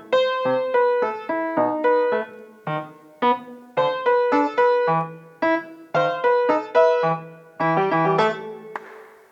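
Solo piano playing a quick run of separate notes, several a second, ending on a held note that dies away near the end.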